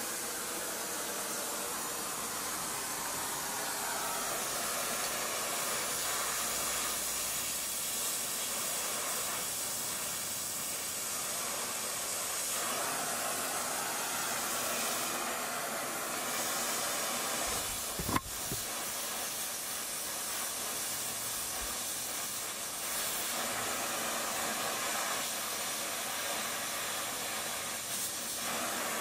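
Gas brazing torch flame hissing steadily while the legs of a steel bicycle rear carrier are tack-brazed. One sharp knock sounds about two-thirds of the way through.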